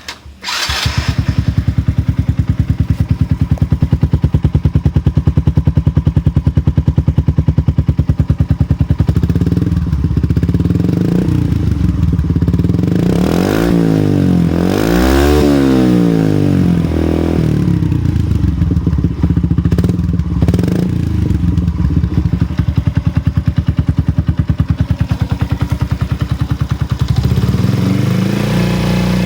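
Honda Little Cub's 49 cc single-cylinder four-stroke engine breathing through an aftermarket Outstanding colour silencer muffler. It idles with a steady pulse, is revved in a series of throttle blips in the middle, and is blipped once more near the end.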